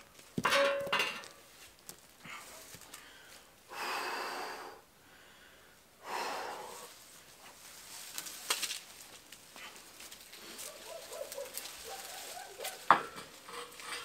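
Heavy steel ladder being hoisted and walked up against a wall: scattered metal clinks and knocks, with a sharp clang near the end the loudest, amid heavy, strained breaths from the person struggling with its weight.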